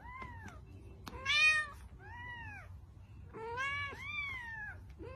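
Cat meowing: about six short, high-pitched meows, each rising then falling in pitch, the loudest about a second and a half in.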